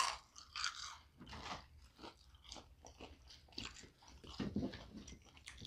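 Close-up chewing and crunching of fried chicken nuggets: soft, irregular crunches and mouth noises.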